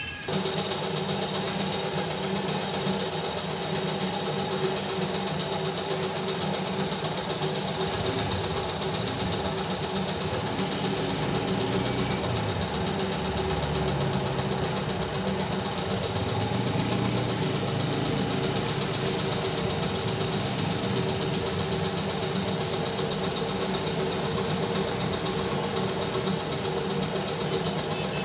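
Air compressor running steadily, with a constant hiss of air from a paint spray gun spraying grey paint onto a motorcycle fuel tank.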